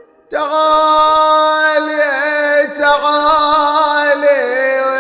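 A man's voice singing one long held note in the manner of a Shia elegy (nai), starting suddenly about a third of a second in and wavering in melismatic ornaments along the way.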